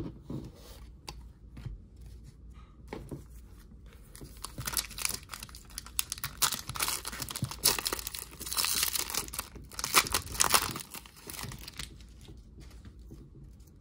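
Foil trading-card pack, a Panini Prizm basketball pack, being torn open and its wrapper crinkled. The crinkling and tearing lasts about six seconds in the middle, after a few light clicks of cards being handled.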